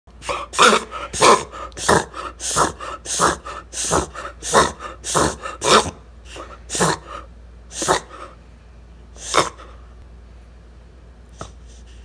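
Beagle reverse sneezing: a fast run of sharp, noisy snorting inhalations, about two or three a second, which slows to a few spaced ones and stops near the end. These are spasms of the dog's throat as it pulls air in hard through the nose.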